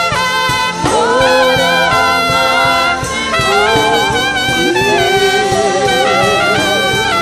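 Trumpet solo amplified through a handheld microphone: a melodic line of slurred, sliding notes with a rising scoop about a second in, over a band with a steady beat.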